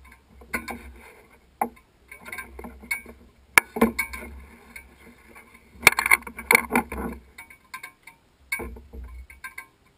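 Irregular metallic clicks and rattles close to the microphone, with two sharp clicks about three and a half and six seconds in, over bursts of wind rumble on the microphone; no engine is running.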